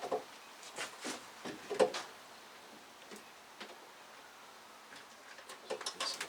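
Scattered light knocks and clicks of metal parts as the engine is worked down and back into the engine bay on the hoist. The loudest knock comes about two seconds in, then a quiet stretch, and a cluster of lighter clicks near the end.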